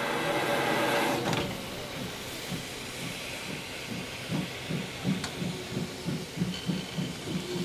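Class 52 2-10-0 steam locomotive pulling away: a loud hiss of steam for about the first second and a half, then exhaust chuffs that start slowly and quicken steadily as the train gathers speed.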